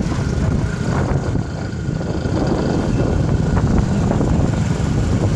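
Steady low rumble from riding in a moving vehicle along a street: engine and road noise mixed with wind buffeting the microphone.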